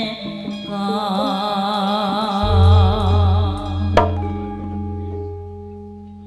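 Javanese gamelan music for tayub: a wavering sung melody over metallophones, a deep gong entering about two and a half seconds in with a throbbing hum, and a sharp stroke about four seconds in. After that the instruments ring out and fade as the piece closes.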